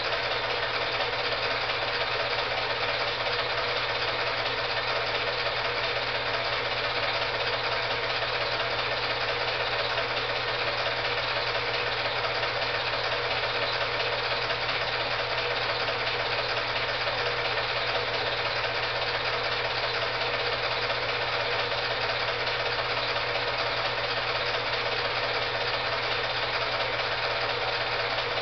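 Steady running of a film projector's motor and mechanism: an even whirring clatter over a low hum, with no changes.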